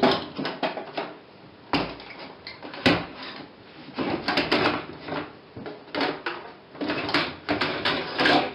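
The hard plastic rear cabinet of a 14-inch Samsung CRT television is being worked loose and slid off by hand. It makes an irregular run of knocks, clicks and scraping, with the sharpest knocks at the start and about three seconds in.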